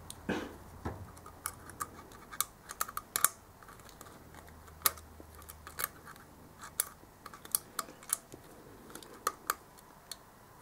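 Feeler gauge blade clicking and scraping against the valve adjuster screw and rocker arm in the open inspection port of a Keeway RKS125's single-cylinder engine head, as the 0.08 mm valve clearance is checked: scattered light metal clicks and ticks at an uneven pace.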